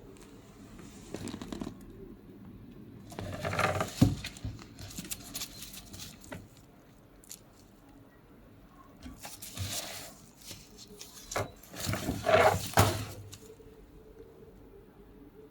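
Packaging being handled and opened by hand: several bursts of rustling and scraping, with one sharp click about four seconds in.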